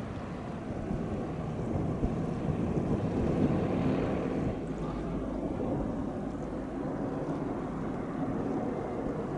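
Low rumble of a large car ferry's engines heard across harbour water, mixed with wind buffeting the microphone. It swells louder for a couple of seconds about a third of the way in.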